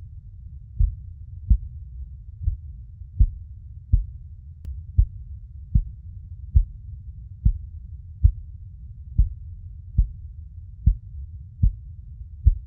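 Heartbeat sound for soothing a baby to sleep: deep, low thumps a little more than once a second, fifteen in all, over a steady low rumble.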